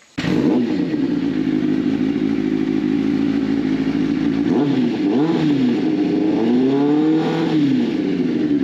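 Kawasaki ZX-9R's inline-four engine idling, with a new primary jet in its carburettor, blipped briefly twice about halfway through and then revved once more, rising and falling, before settling back to idle.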